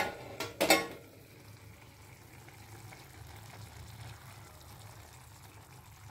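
A short metallic clatter under a second in as the steel lid is lifted off a kadai with tongs, then paneer curry gravy simmering, with a steady bubbling boil.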